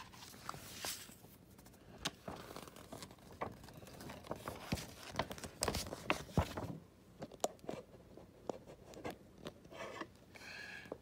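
Pages of an old paper scorebook rustling and crinkling as they are handled and turned, with many small scattered clicks and scrapes.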